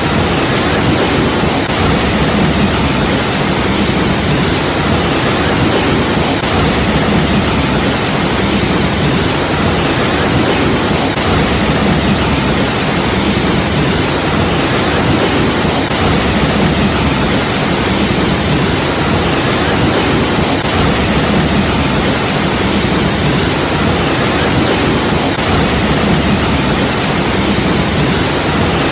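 Waterfall: a steady, dense rush of falling water, loud and unchanging, with most of its weight in the low and middle range.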